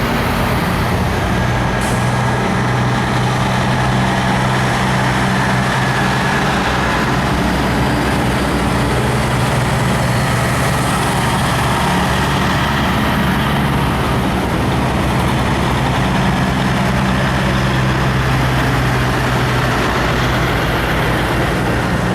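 Heavy tow trucks' diesel engines running steadily as a line of trucks rolls by, a constant low engine drone.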